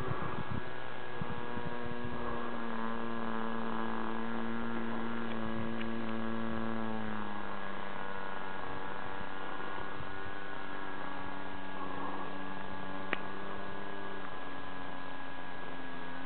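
The OS 60 plain-bearing model engine of a Sal Taibi Powerhouse model plane running steadily in flight, a continuous buzzing drone. Its pitch drops about seven seconds in and climbs back near the end, with one sharp click about thirteen seconds in.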